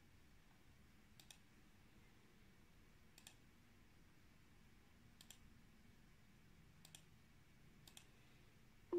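Near silence with a few faint, sharp clicks, about five of them, a second or two apart.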